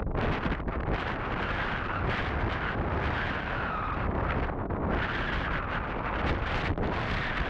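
Wind buffeting the microphone: a steady, gusty rushing noise.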